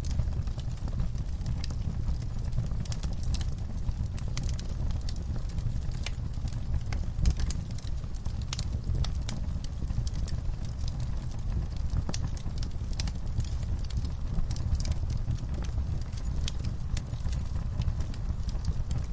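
Wood fire crackling, with frequent irregular sharp pops and snaps over a steady low rumble of the flames.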